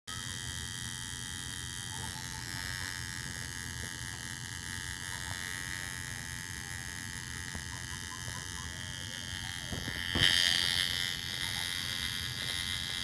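Coil tattoo machine buzzing steadily as the needle works into skin, with one short knock about ten seconds in.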